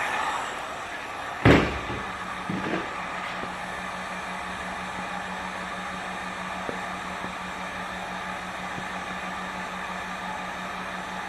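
Heat gun's blower dying away as it is switched off, then one sharp knock about a second and a half later and a couple of lighter knocks, with a low steady hum running on afterwards.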